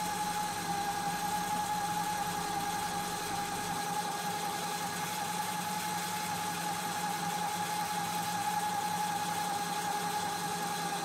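Electric gear motor of a plastic injection machine running steadily as it drives the piston forward. Its open, unlubricated gearbox gives a steady whine of constant pitch over a low hum, and it is quite noisy.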